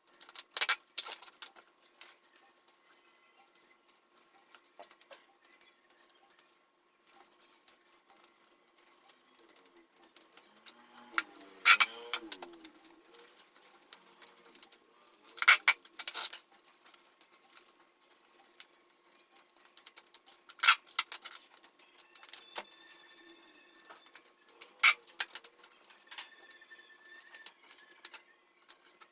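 Packing material being handled: rustling with about five sharp crinkles spread out over the stretch, against a faint steady hum.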